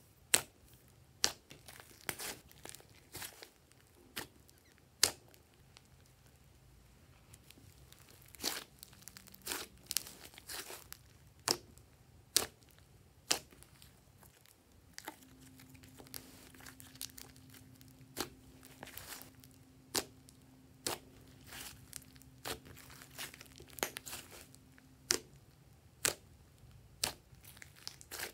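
Hands kneading and pressing a large lump of thick slime mixed with clay, giving sharp pops and crackles, irregular and roughly one a second, as air pockets in the slime are squeezed.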